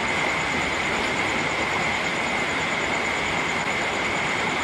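Steady rain, an even, unbroken hiss that does not change.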